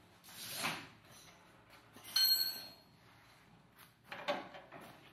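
Handling noises: rustling and knocks, with a brief ringing clink about two seconds in.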